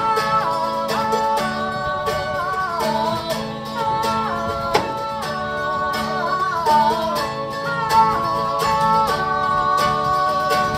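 Live acoustic folk music: acoustic guitar strumming in a steady rhythm under a wordless sung melody line that glides between notes.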